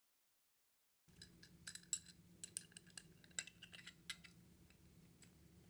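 Light metallic clicks and clinks of stainless steel valve parts being handled as bolts are threaded into a butterfly valve body by hand. The irregular ticks start about a second in and last about three seconds before thinning out.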